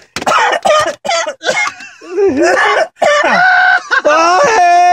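A man's loud, high-pitched laughter: choppy cackles at first, then long held whooping notes from about three seconds in.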